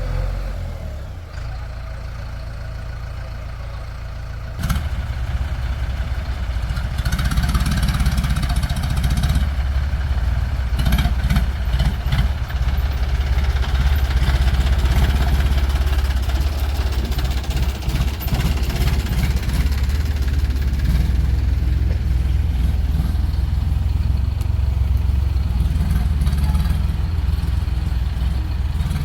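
Heavy diesel engine running, lower at first, then jumping suddenly to a louder, harder-working note about five seconds in and holding there. A few short knocks are heard around the middle.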